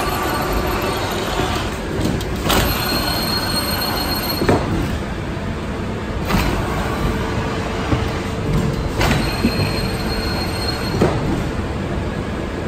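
Automatic flatbed fabric screen-printing machine running: steady mechanical clatter with a clank about every two seconds as it cycles, and a thin squeal that comes and goes.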